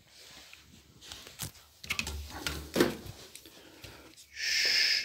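Plastic parts of a vacuum cleaner's hose, tube and attachments being handled and fitted together: scattered clicks and knocks, then a short scraping hiss near the end.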